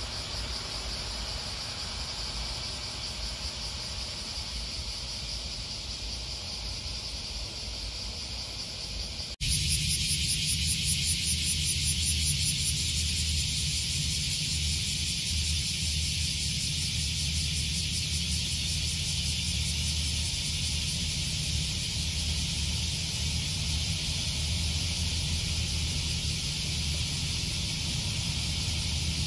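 Steady high-pitched chorus of summer cicadas over a low rumble of street traffic, getting louder about nine seconds in.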